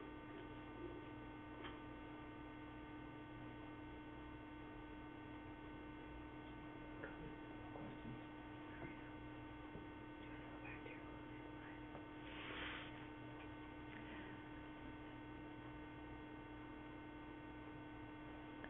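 Faint steady electrical hum on the audio line, with a few faint ticks and a brief soft rustle partway through.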